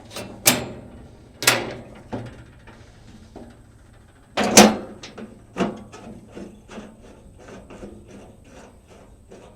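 A few sharp knocks and clatters, the loudest about four and a half seconds in, then a run of lighter, irregular clicks and taps, as things are handled and set down while the sawmill is packed up and the slabs are moved.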